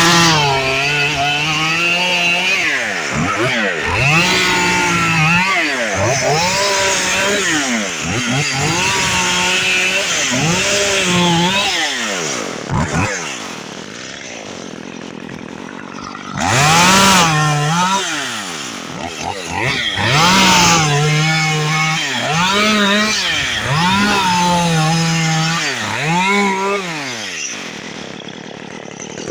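Two-stroke chainsaw cutting cabbage palm fronds and old frond bases (boots), revved up and let down about a dozen times, with a brief drop to a lower idle about halfway through.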